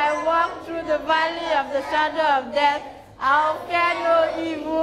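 A high-pitched voice singing a slow melody with drawn-out notes, and little or no instrument behind it.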